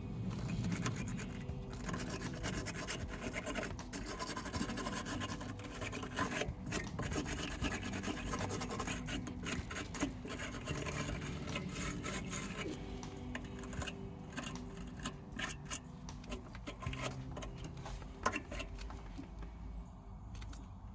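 Irregular scraping and rubbing strokes with occasional clicks, the sound of scrubbing corrosion off the battery cable terminals by hand.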